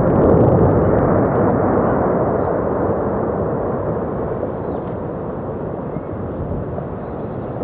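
Explosive volcanic eruption: a loud, dense rumble from the rising ash column just after the blast's shockwave arrives, fading slowly. Faint bird calls are heard over it.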